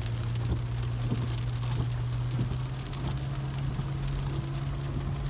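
Heavy rain hitting a car's roof and windshield, heard from inside the cabin, over a steady low hum from the moving car that rises slightly in pitch about halfway through.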